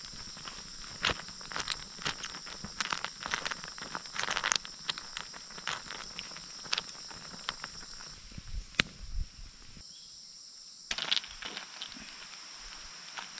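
Insects trilling steadily in the forest, with irregular clicks and crackles from a pot of snails and leaves boiling over a wood fire while being stirred with chopsticks.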